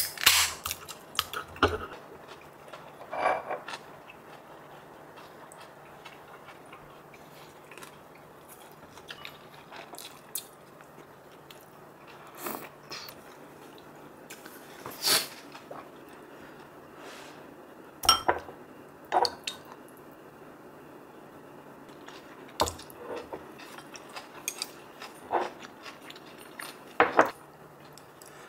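Chopsticks clinking and tapping against ceramic bowls and plates while eating: about a dozen short, separate clinks spaced a few seconds apart, over a faint steady hum.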